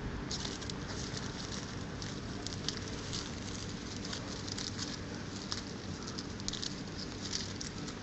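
Hedgehogs shuffling and moving in dry leaf litter: irregular, crisp rustling and crackling that comes in short clusters, over a faint steady hum.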